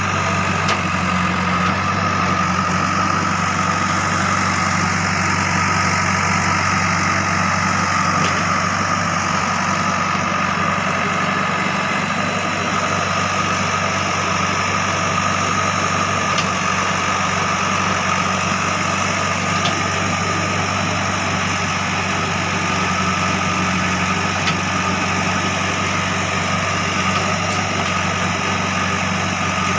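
JCB 3DX backhoe loader's diesel engine running steadily, with a steady high whine over the low engine note.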